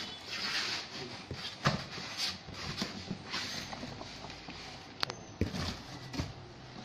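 Cardboard rustling and scraping as a boxed inverter is pulled out of its cardboard shipping carton, with a few knocks and clicks, a sharp one about five seconds in.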